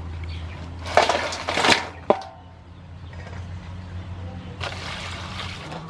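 Large aluminium basin holding live blue crabs in water being carried and set down on a mat: a second of rattling and scraping, then a sharp knock with a short metallic ring from the basin. A softer rushing noise follows near the end.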